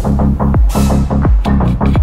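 Electronic dance music with a steady kick-drum beat and deep bass.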